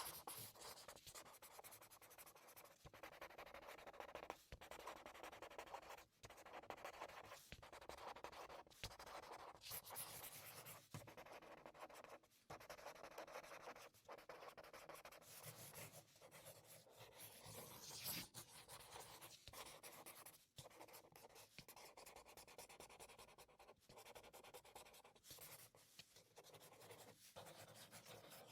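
Marker pen writing: the felt tip scratching and rubbing across a surface in quiet strokes of a few seconds, broken by brief pauses.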